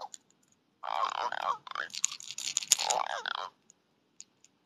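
Scraping, crunching handling noise from a hand gripping a freshly caught fish right against the phone's microphone, in one stretch of about two and a half seconds starting about a second in, with a few faint ticks after.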